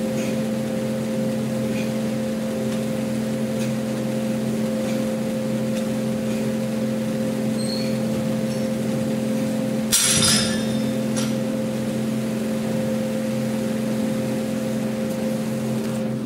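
Steady hum of an electric fan motor, with a few fixed tones, and faint clicks of the weights. About ten seconds in there is one short, louder clatter.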